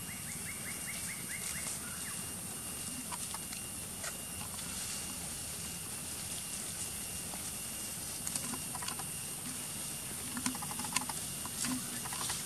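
Outdoor ambience with a steady high hiss. There is a quick run of about eight short chirps in the first second and a half, then scattered light clicks and rustles from macaques moving on dry leaf litter, clustering near the end.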